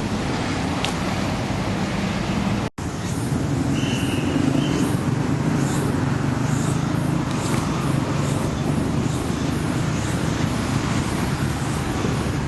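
Steady road traffic noise with a low hum, cut off for an instant a little under 3 s in. About a second after the cut comes a brief high-pitched squeal.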